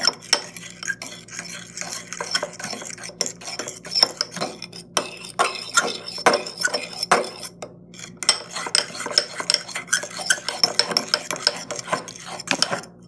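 A spoon stirring and scraping around a bowl with rapid, uneven clinks, mixing borax solution into glue as the slime forms. The stirring stops shortly before the end.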